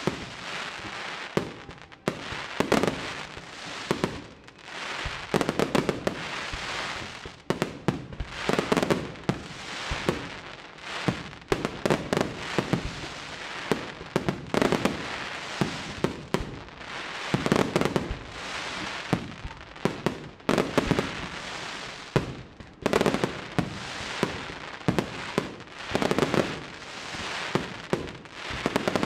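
Aerial fireworks display: shells bursting in quick succession, many sharp bangs in dense clusters every second or two without a pause.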